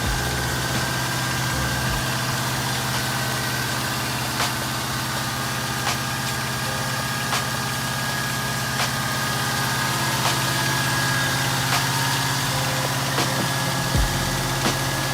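An engine idling steadily, with a faint sharp tick about every second and a half.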